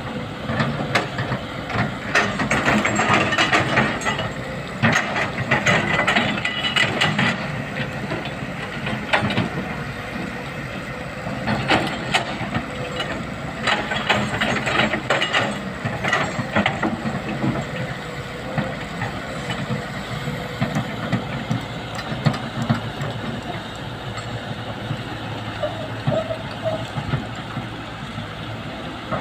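Hydraulic excavator's diesel engine running, with irregular scraping and clattering of rock against the steel bucket, busiest in the first half.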